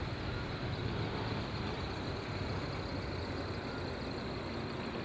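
Steady road traffic: bus and motorcycle engines running, a low, even engine rumble with street noise.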